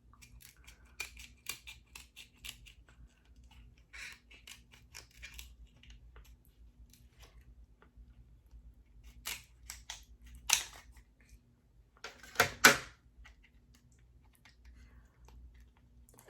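Close-miked eating of king crab legs: scattered small clicks and crackles of shell and mouth sounds, with two louder snaps or crunches about ten and twelve seconds in.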